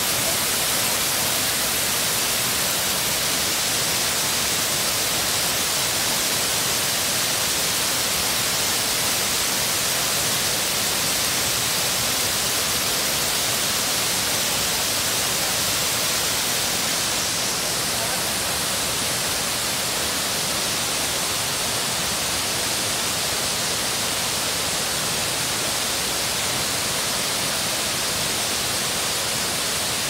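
Waterfall rushing: a steady, even hiss of falling water. The brightest part of the hiss softens slightly a little past halfway.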